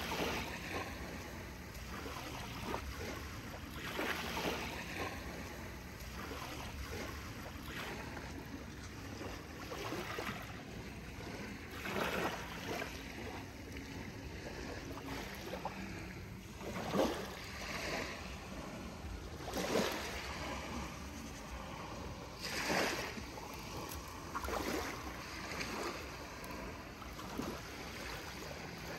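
Water sloshing, with short splashes every two to three seconds as toy cars are moved about in a pool of water.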